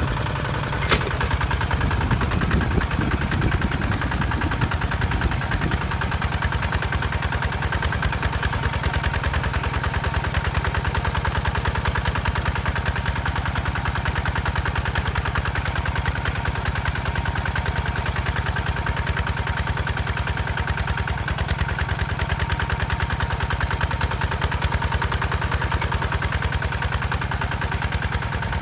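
Single-cylinder diesel engine of a two-wheel walking tractor running with a steady, fast chug as it pulls a disc plow through dry soil. There is a sharp click about a second in.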